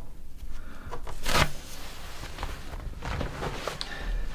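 Paper wrap being pulled off a computer and handled: one loud rustle of paper about a second in, then several shorter crinkles and rustles.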